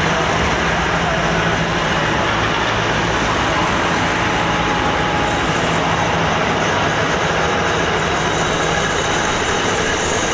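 A diesel-electric locomotive passing close by at low speed, its engine running with a steady low drone. After about seven seconds the engine fades and the steady rumble of passenger coaches rolling over the rails takes over.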